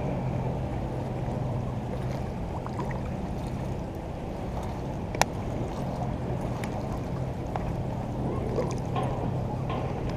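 Water sloshing and lapping around a float tube over a steady low hum, with one sharp click about five seconds in.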